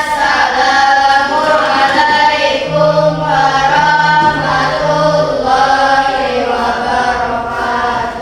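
A class of schoolchildren singing or chanting together in unison, holding drawn-out notes.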